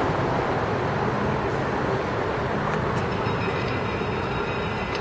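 Steady rushing noise of wind on the microphone mixed with rumble from rolling over the road surface while moving along the street.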